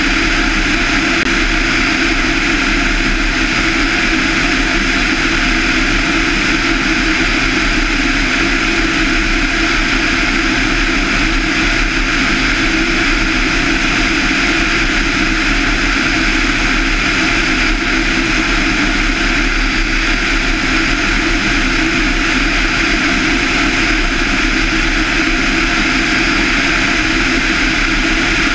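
Van's RV-7's 200 hp Lycoming IO-360 four-cylinder engine and propeller droning steadily in level cruise flight.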